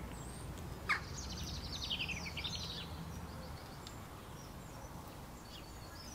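Small birds chirping and singing, with a fast trilled phrase falling in pitch about a second in and scattered short chirps after, over a faint steady background noise.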